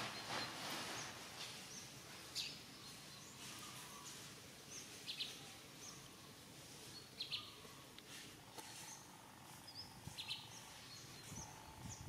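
Faint outdoor ambience with scattered short, high chirps every second or two and a few soft clicks.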